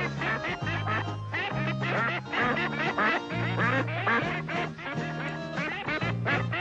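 Many ducks and ducklings quacking and peeping at once, short overlapping calls, over background music with a bass line of held notes that shift about once a second.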